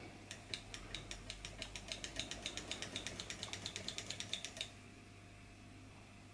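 Tarot Stirling engine driving a wooden model baker fan through a belt, its mechanism ticking faintly and rhythmically at about eight or nine clicks a second. The ticking fades out about four and a half seconds in.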